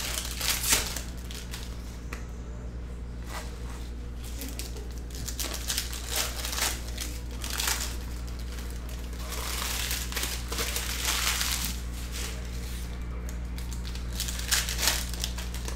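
Foil wrappers of Panini Prizm football card packs crinkling as the packs are opened and handled, in several irregular bursts, over a steady low hum.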